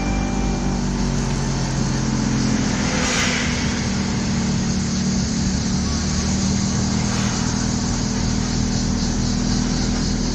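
Engine hum and road noise of a moving vehicle, heard from inside it; the engine note steps up in pitch about three seconds in, with a brief passing whoosh at about the same moment.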